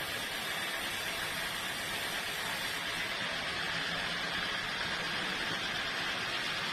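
Sawmill saw running steadily, an even hissing noise with a faint low hum underneath.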